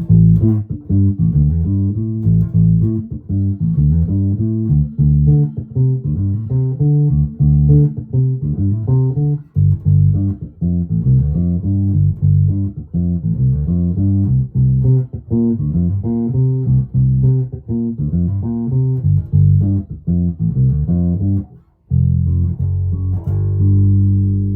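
1996 Alembic Epic active bass played on the neck pickup alone with its bass control boosted about halfway: a busy line of quick plucked notes, heavy in the low end. Near the end it stops briefly, then a held note rings out.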